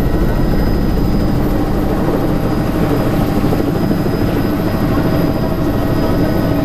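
Helicopter hovering just above a helipad, heard from inside the cabin: its turbine and rotor run steadily, a thin high whine over a dense low drone.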